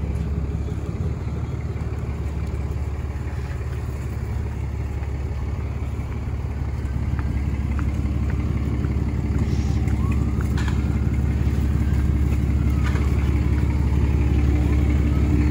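A large vehicle engine idling steadily, a low-pitched sound that grows louder about halfway through.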